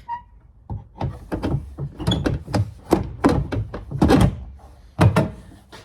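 Plastic tail-light housing knocking and clunking again and again as it is worked back into its opening in the vehicle body: a quick run of a dozen or so sharp knocks over about four seconds.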